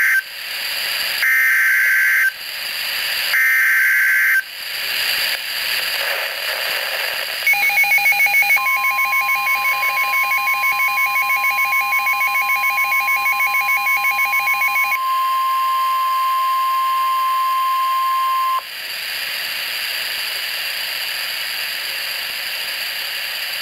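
NOAA Weather Radio Emergency Alert System alert. It opens with the end of one and two more of the screeching, roughly one-second digital data bursts of the SAME header. After a few seconds of static comes the steady 1050 Hz warning alarm tone for about ten seconds, with a pulsing electronic warble over its first half. Radio hiss follows once the tone cuts off.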